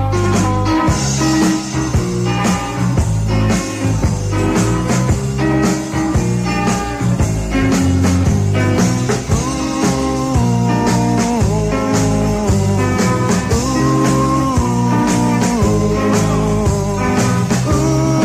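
A rock band playing a slow, swinging rockabilly-style instrumental passage: a prominent bass line stepping from note to note, electric guitar lines over it, and a steady beat.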